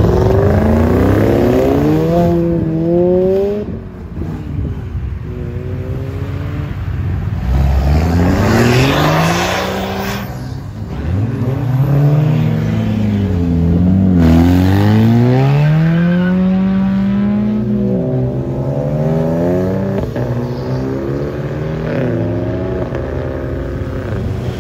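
Modified cars accelerating away one after another, engines revving hard through the gears, the pitch climbing and then dropping at each gear change. About eight seconds in, one car accelerates with a loud rushing noise.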